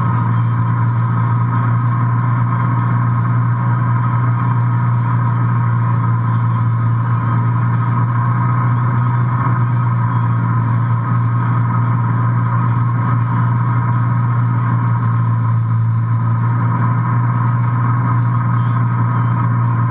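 Inboard engine of an MB Sports B52 wakesurf boat droning at a steady speed, a constant low hum, mixed with the rush of water from the boat's wake.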